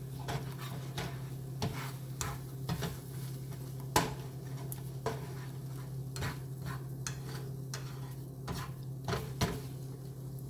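A utensil stirring eggs in a dish, clinking and scraping in irregular strokes, with one sharper knock about four seconds in. A steady low hum runs underneath.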